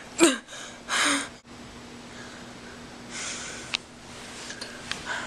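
Two short breathy sounds from a person in the first second and a half, the first sliding down in pitch. Then a steady low hum with a faint rustle and a few small clicks.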